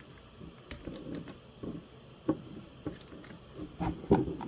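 Cardboard and plastic packaging of a trading-card box being handled: scattered clicks and taps with light rustling, and a few sharper knocks about two seconds in and near the end.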